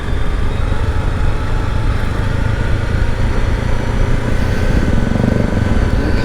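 Honda CRF dual-sport motorcycle's single-cylinder engine running with a steady, dense rumble.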